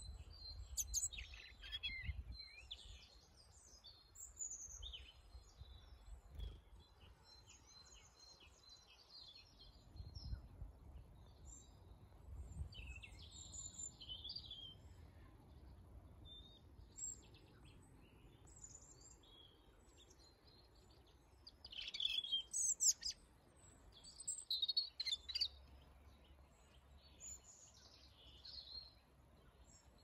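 European robin singing: scattered short, high, thin warbling phrases with pauses between them, the loudest run of phrases coming about two-thirds of the way through.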